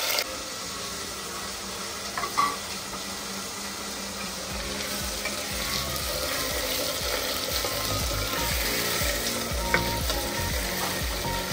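Cubed potatoes frying in hot mustard oil with panch phoron in a pressure cooker: a steady sizzle, with the potatoes stirred and occasional knocks against the pot from about halfway.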